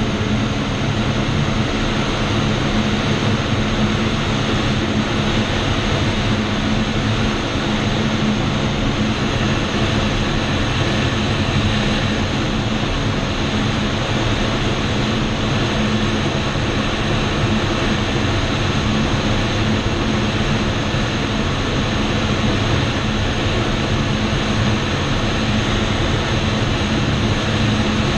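Steady rushing airflow noise in the cockpit of a Schweizer SGS 1-26E glider in gliding flight, with a steady low hum underneath.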